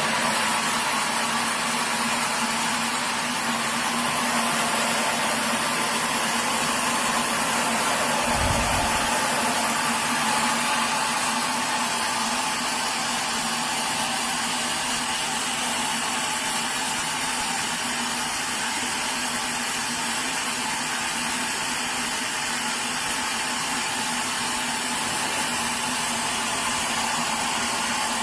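Sawmill machinery running steadily: a constant machine hum under a dense, even hiss, with a brief low thud about eight seconds in.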